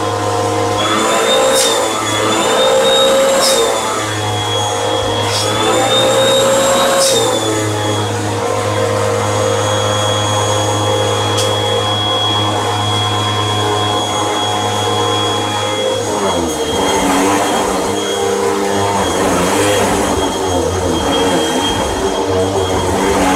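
Hoover WindTunnel Rewind bagless upright vacuum cleaner running over a rug, a steady motor hum with a high whine. The whine rises and dips in pitch twice in the first third, and the sound turns rougher and more uneven in the last third.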